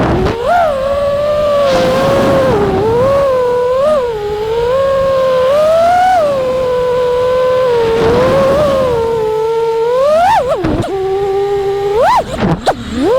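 Five-inch FPV quadcopter's T-Motor F60 Pro IV 1750kv motors and props whining, the pitch rising and falling with throttle. About ten seconds in, and again near the end, the throttle is chopped and punched: the pitch dives, then surges back up. Wind rushes over the microphone at times.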